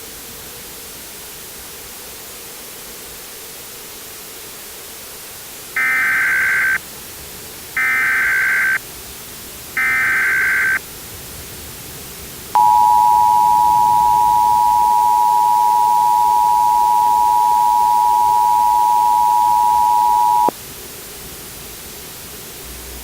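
Emergency Alert System tones: three one-second bursts of SAME header data about a second apart, then the two-tone attention signal (853 and 960 Hz together), held steady for about eight seconds. They open a civil emergency message alert, over a steady background hiss.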